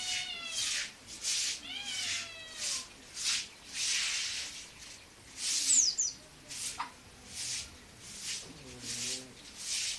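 Caged percit bird calling with short, harsh rasping notes repeated about every 0.7 seconds. Near the start come two drawn-out, falling, mewing calls, and about six seconds in a single sharp high chirp.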